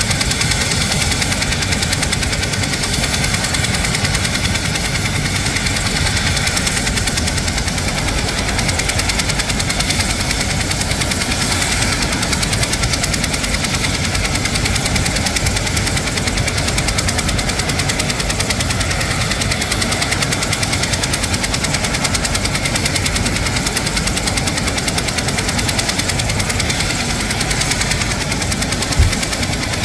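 Twin-turbine military helicopter running on the ground with its four-blade main rotor turning: a steady turbine whine over the rotor and engine noise. A short low thump near the end.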